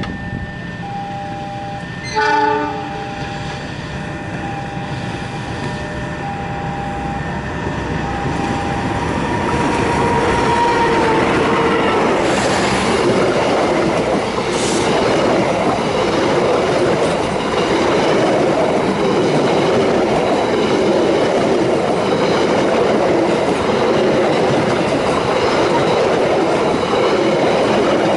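Express passenger train approaching and running past at speed from about ten seconds in, its wheels clattering on the rails under a long horn blast. Before it arrives, a level-crossing alarm sounds a repeating short tone about once a second, and a brief horn beep sounds about two seconds in.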